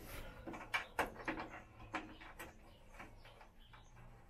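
Hands working new bunk material onto a Dormobile roof bunk's metal frame: a string of irregular clicks, taps and rustles, busiest in the first two seconds or so and then sparser.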